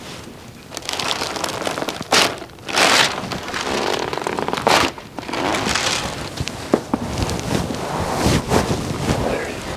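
Chiropractic adjustment: rustling and handling noise of the patient's clothing and the treatment table, broken by a handful of sharp cracks and thuds as joints of the spine are popped by the adjustments.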